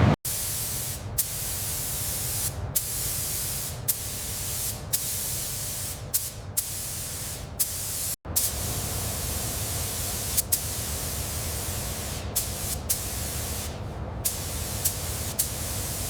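Paint spray gun hissing steadily in long passes, broken by a dozen or so brief pauses as the trigger is released.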